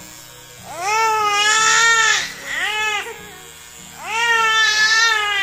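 A baby girl crying hard in long wails while her head is shaved with electric hair clippers: two long cries, each rising and then falling in pitch, with a short cry between them.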